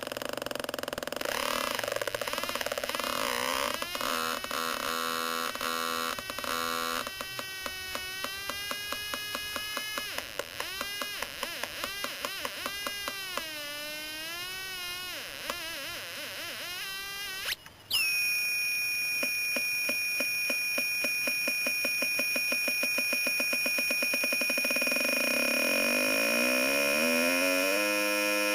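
Homemade electronic sound effects generator making warbling, wavering synthesized tones broken by regular pulsing clicks. A little past halfway it cuts out for a moment, then sets into a steady high-pitched tone with a ticking pulse that gradually speeds up.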